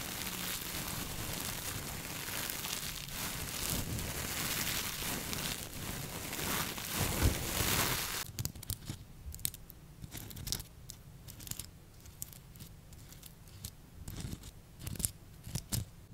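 Metallic pot-scrubber balls crunched and squeezed against a foam microphone windscreen, giving a dense, continuous crinkling. About halfway through, the sound switches abruptly to quieter, scattered crackles and taps.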